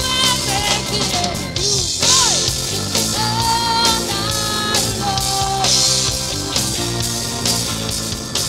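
Live rock band playing, with a woman singing long held notes and sliding between pitches over electric guitar, bass guitar and drum kit.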